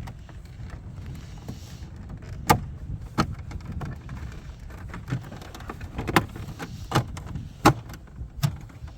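Irregular sharp clicks and knocks, about seven of them, from plastic interior trim and wiring being handled and fitted in a car, over a low steady rumble.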